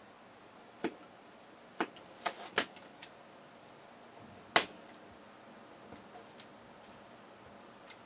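A few light plastic clicks and taps as small styrene-sheet squares are handled on a cutting mat. About four and a half seconds in there is one sharp, loud snap as a thin strip is broken off a scored piece of styrene sheet.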